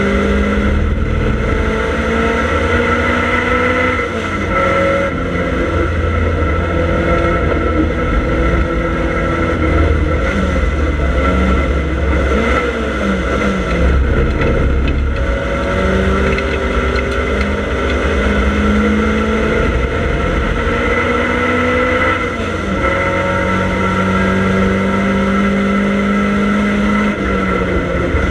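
Triumph Dolomite Sprint's 2-litre 16-valve four-cylinder race engine, loud inside the cabin, pulling hard with its pitch climbing through the gears. The revs drop at gear changes about 4 seconds and 22 seconds in, and rise and fall several times in the middle.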